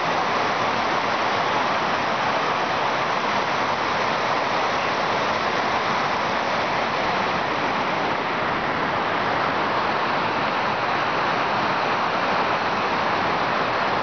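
Steady rush of running mountain water, an even hiss that never breaks.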